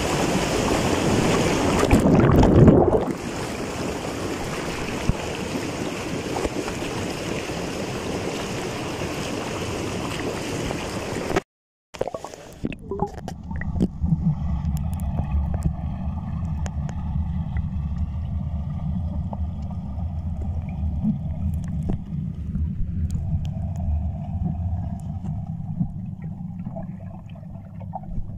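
Spa hydromassage jets churning pool water in a steady rush, with a louder surge about two seconds in. After a short break about eleven seconds in, it turns to a muffled low rumble of the jets heard with the microphone under the water.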